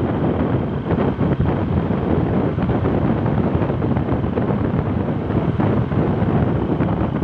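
Wind buffeting the microphone of a moving vehicle, with road and engine noise underneath: a steady, heavy rumble that does not change.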